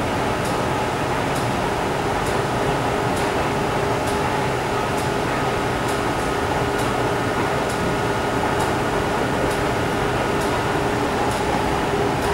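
Steady hum of ventilation on an underground metro platform, with a faint tick about once a second.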